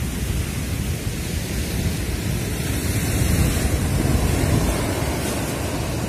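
Large storm surf and seawater washing across the ground, a steady loud rushing, mixed with wind blowing on the microphone.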